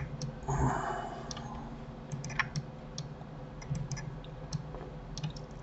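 Computer mouse and keyboard clicking: scattered light, irregular clicks of buttons and keys, with a brief soft rustle about half a second in.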